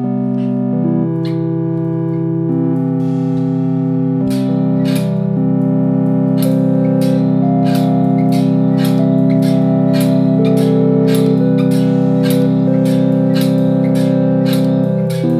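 Keyboard and synthesizer music: held, organ-like chords over a steady low bass note, shifting from chord to chord, with sharp percussive hits that come more and more often from about four seconds in.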